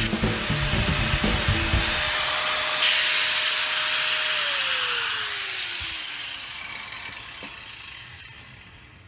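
Electric angle grinder with its disc grinding on a steel bracket, then lifted off and running free. About four seconds in it is switched off and its whine falls in pitch as the disc spins down.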